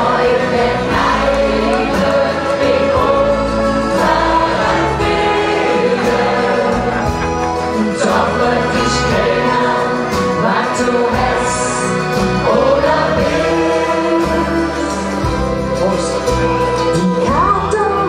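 Women's vocal group singing together into microphones over an upbeat instrumental backing.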